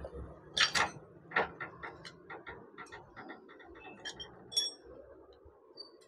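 Metal clicks and clinks from a motorcycle rear shock absorber being worked in a clamp-type spring compressor: two louder knocks, then a quick run of light ticks, then two short ringing metal clinks about two thirds of the way through.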